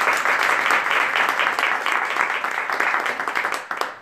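Applause from a small audience, many people clapping together, dying away near the end.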